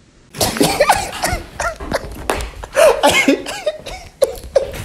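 A young man laughing hard, a rapid run of short, breathy bursts that breaks out about a third of a second in and keeps going.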